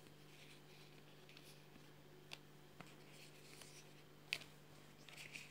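Near silence: a faint, steady freezer hum, with a few light clicks of vinyl stickers being handled.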